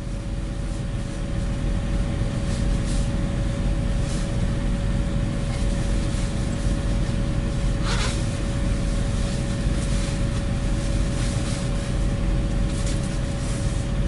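Steady low hum of a semi truck's engine idling, heard from inside the cab, with a steady mid-pitched tone over it. A short hiss comes about eight seconds in.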